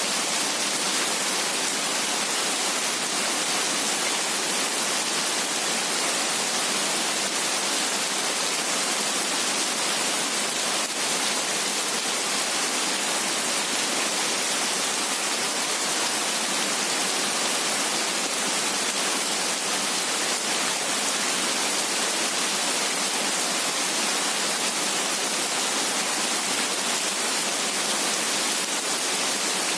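Heavy rain falling steadily: a dense, even hiss with no separate drops or thunder standing out.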